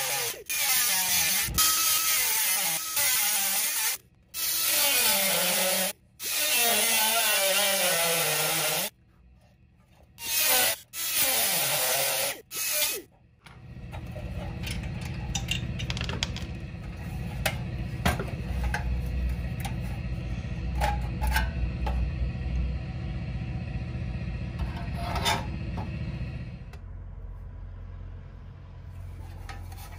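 Handheld rotary tool grinding the pressed steel of a 1970s Tonka toy dump truck in several bursts, its whine rising and falling as it bites and frees. About 13 seconds in the grinding stops and gives way to hands working the truck's steel chassis and cab loose: light clicks and metal scrapes over a low steady hum that fades out near the end.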